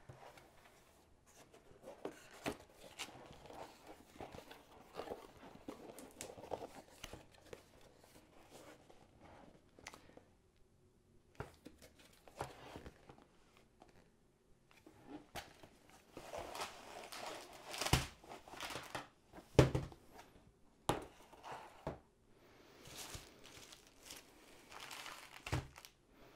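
Cardboard kit box opened by hand, with plastic packaging crinkling and rustling as the bagged contents are pulled out, and irregular knocks as items are set down on the table. The rustling is busiest about two-thirds of the way in, where two sharp knocks stand out.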